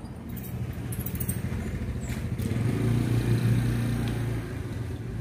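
Motor vehicle engine passing by, a low hum that builds to its loudest about three seconds in and then fades away.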